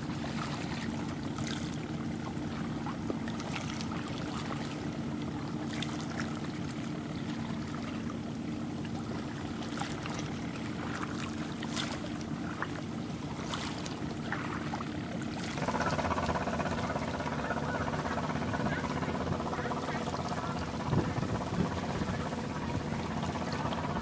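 Steady drone of a passing boat's diesel engine with water lapping. About two-thirds of the way in the engine sound grows louder and richer.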